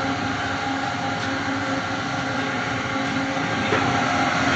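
Soap-making machinery running with a steady motor hum.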